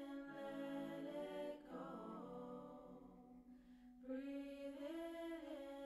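Soft background music of voices holding long, chant-like notes that slowly glide to new pitches a few times.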